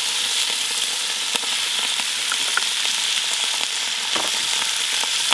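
Pieces of pork heart searing in hot clarified butter in a Dutch oven: a steady sizzle with scattered small crackles. The sound is the sign that the pot is hot enough to sear.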